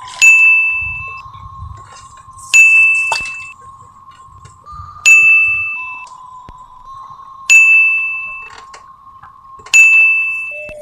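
A bell-like ding struck five times, about every two and a half seconds, each ring sharp at the start and dying away over about a second. Under it runs a steady high tone that steps slightly in pitch.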